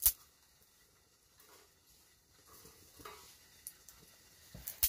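Kindling fire crackling faintly in a small camp wood stove, with a few light ticks. A sharp click comes at the very start and another near the end.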